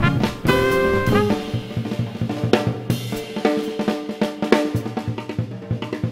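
Swing jazz from a small combo: a trumpet phrase ends about a second in, then the drum kit comes forward with snare, bass drum and hi-hat hits over quieter pitched backing.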